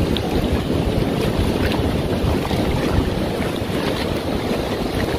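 Wind buffeting the microphone, a steady low rumble over the wash of surf on the beach.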